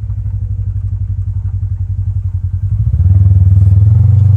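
A vehicle's engine running steadily at low revs with a pulsing note, hauling a heavy load; about three seconds in it gets clearly louder.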